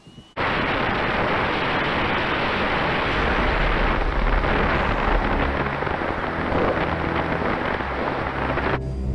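Airflow and 90 mm electric ducted fan noise of a Freewing F-4 Phantom II RC jet in fast low flight, picked up by its onboard RunCam2 camera's microphone: a dense, steady rushing noise that starts abruptly about half a second in and cuts off just before the end, where music comes back.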